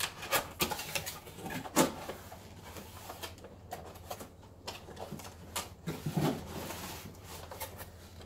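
Cardboard box being opened by hand: the lid and flaps rustle and scrape, with a string of knocks and clicks, the sharpest about two seconds in and a cluster near the end.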